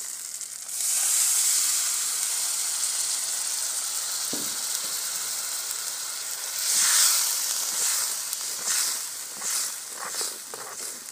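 Water poured into hot oil-fried masala in a steel karahi hits with a sudden loud sizzle about a second in, then keeps sizzling steadily, swelling again several times in the second half as a steel ladle stirs the mix.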